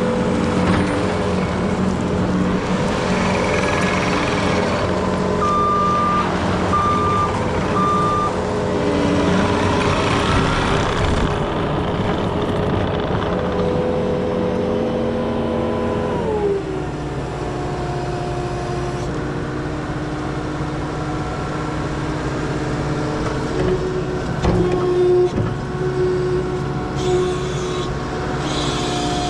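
Case TV380 tracked skid steer's diesel engine running at high throttle, with three short alarm beeps about six seconds in. About sixteen seconds in, the engine note drops as it is throttled back, and it runs on steadily at the lower speed.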